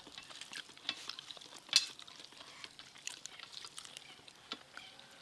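Scattered light clicks and taps of tableware and food being mixed on a plate during a meal, with one sharper clink about two seconds in.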